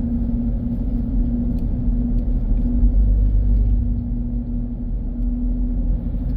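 A car in motion heard from inside the cabin: a steady low rumble of engine and road noise with a constant hum, easing slightly for a moment past the middle.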